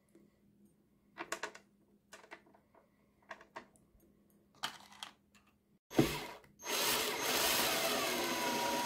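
A few light clicks as screws are set into the plastic base of a meat grinder. About six seconds in there is a sharp knock. Then, about seven seconds in, a cordless drill/driver starts up and runs steadily, driving a screw down into the plastic case.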